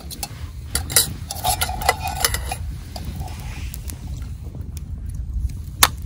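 Metal cookware and utensils clinking and knocking, with a short metallic ring about a second and a half in and one sharp click near the end, over a steady low rumble.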